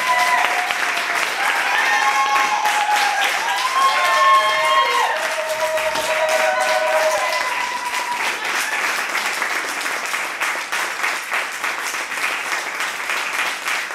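Audience applauding, with several high voices calling out and cheering over the clapping during roughly the first eight seconds; the clapping carries on steadily after the voices stop.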